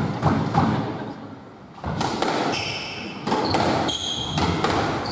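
Squash ball being hit in a rally: a few knocks, then from about two seconds in a run of sharp smacks of racket on ball and ball off the court walls, mixed with short high squeaks of court shoes on the wooden floor.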